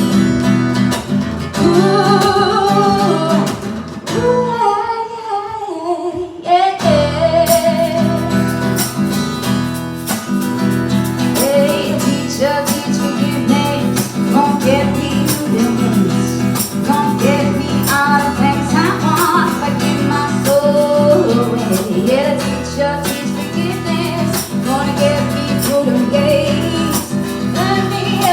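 Live acoustic song: strummed acoustic guitar with a sung melody. The guitar drops away about four seconds in and comes back with a strong strum a couple of seconds later.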